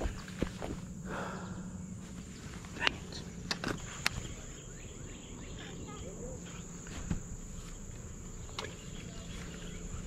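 Steady high-pitched drone of insects, with about half a dozen sharp clicks and taps scattered through it as a baitcasting rod and reel is handled.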